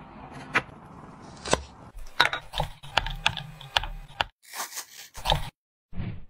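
Crisp clicks and scrapes of a knife shaving a bar of pink strawberry chocolate into curls on a wooden cutting board, coming singly at first and then in a quick flurry. After that a softer scraping of a spatula stirring melting chocolate in a glass bowl.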